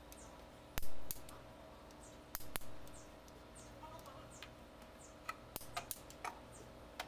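Metal hand-tool clicks and clanks on the valve gear of an OM501 diesel's open cylinder head as a wrench is worked on it. A sharp clank about a second in is the loudest, two more follow about a second later, and a quick run of clicks comes near the end.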